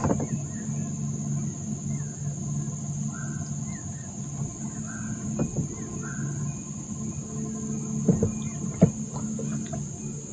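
A bird calling a few times, short matching notes about a second and a half apart, over a steady low hum and a steady high-pitched whine; two sharp knocks near the end.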